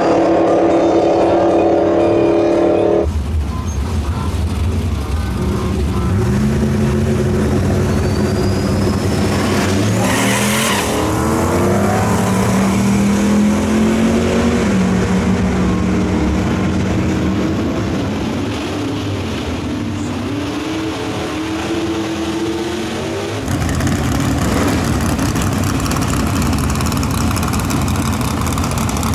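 American muscle-car engines at full throttle on a drag strip: one steady high engine note, then an engine whose pitch climbs and drops back several times as it shifts through the gears. Near the end, a pickup's rear tyres spinning in a smoky burnout over a rough engine rumble.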